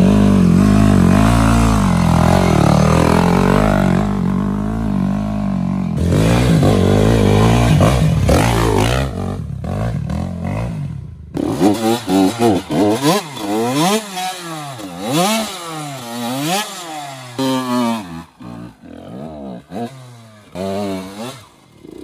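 Two-stroke TM Racing dirt bike engine running hard, then revved again and again in quick bursts that rise and fall sharply as the bike struggles for grip on a steep, loose climb.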